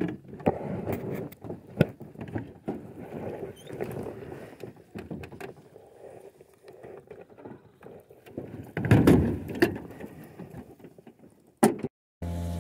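Small fishing boat moving on the water: uneven water and hull noise with scattered knocks, louder for a second or so about nine seconds in, then cutting off abruptly near the end.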